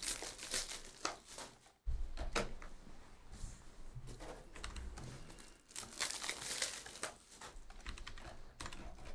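Typing and clicking on a computer keyboard, in irregular runs of key clicks.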